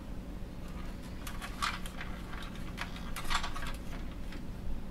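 Light, scattered clicks and taps of plastic parts being handled and fitted together: the dryer's control housing and fascia panel being put back on.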